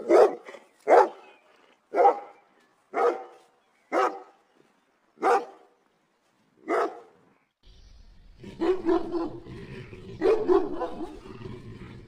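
A dog barking: seven single sharp barks, each about a second apart, then, after about seven and a half seconds, quicker runs of barks over a steady background noise.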